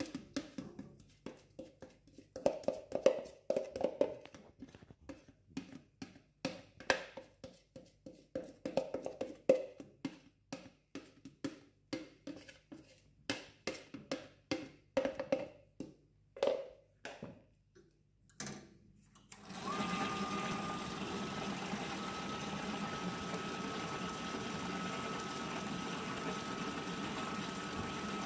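Spiral dough mixer kneading pizza dough on slow speed: a faint motor hum under a run of short slaps and clicks, about one or two a second, as the hook works wet, sloppy dough. About two-thirds through the mixer sound turns steady and louder, with a thin whine over it.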